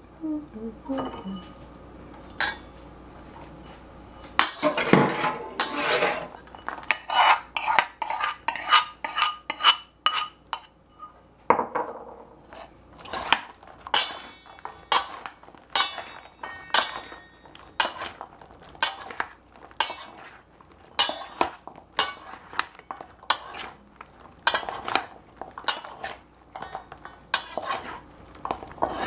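Metal spoon clinking and scraping against a stainless steel mixing bowl as bread cubes are tossed, in repeated strokes roughly two a second. The bowl rings faintly after some strokes.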